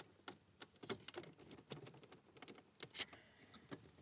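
Faint, irregular clicks and taps of plastic dash trim being handled and worked loose, with one sharper click about three seconds in.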